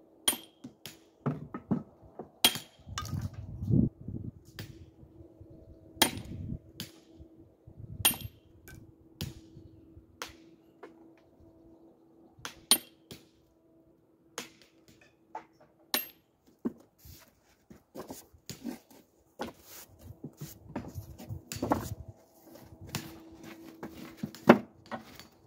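Hammer striking a hand chisel into Indiana limestone: irregular sharp strikes, some with a high metallic ring, coming in short runs with pauses between. A steady low hum runs behind them.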